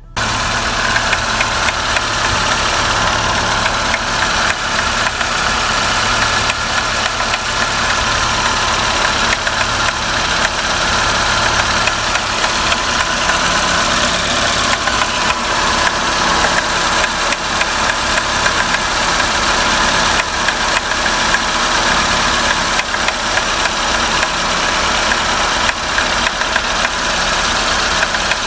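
2017 Renault Sandero Stepway engine running at idle right after a cold start, with rapid clicking ticks over the engine sound. These clicks appear only on a cold start and die away after a few minutes; their cause is not known to the owner.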